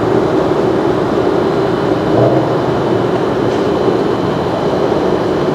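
Steady road-traffic noise: a continuous rumble of cars passing, swelling slightly about two seconds in.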